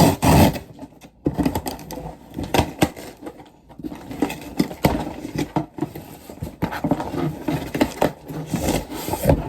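A shipping package being opened by hand: irregular crackling and rustling of the packaging, loudest in the first half second, with scattered sharp clicks after.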